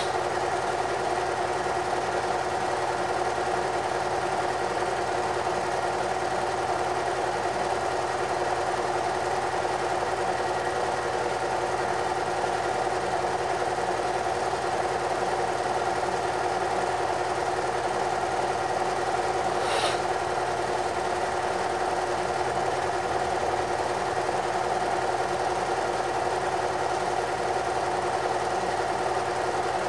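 Home-movie film projector running steadily, with one short sharp click about two-thirds of the way in.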